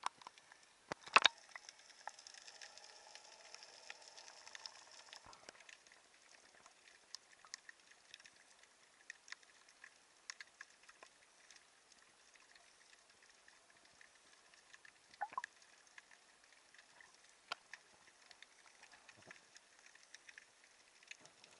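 Faint, sparse clicks and crackles, with one sharp knock about a second in and a soft hiss for a few seconds after it.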